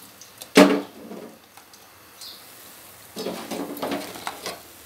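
A steel slotted spoon knocks and scrapes against an iron karahi as fried pakoras are lifted out of the hot oil. There is one sharp clank about half a second in, then more scraping and clatter in the last second and a half, with the oil sizzling underneath.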